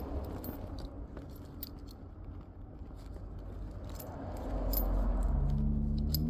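Car keys and immobiliser fob jangling and clicking as they are handled. About four and a half seconds in, a low hum starts with a few steady tones over it.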